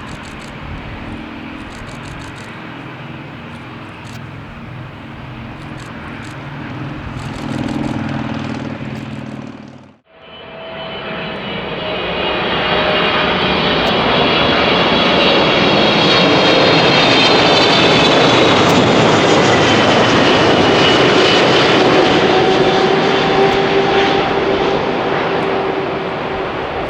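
Jet airliner engines: first a quieter steady hum with low droning tones, then, after a brief fade to silence about ten seconds in, a much louder rush of a jet passing close, with high whining fan tones that slowly drop in pitch.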